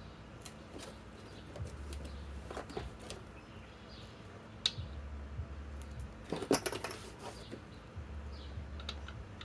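Light metallic clinks and handling noises, as of metal tools and hardware being picked up and set down. There is a sharp clink about halfway through and a quick cluster of clinks a little later, over a faint low hum that comes and goes.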